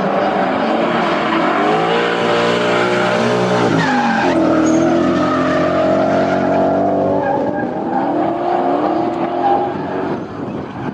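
Two drift cars sliding in tandem, engines held at high revs and rising and falling in pitch as the throttle is worked, with tyres screeching as they slide sideways. About four seconds in the engine note drops sharply and then climbs again.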